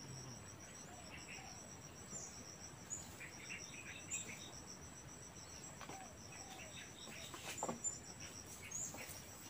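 Insects trilling, with a steady high whine and a rapid high pulsing that run on without a break, and a few short bird chirps over them.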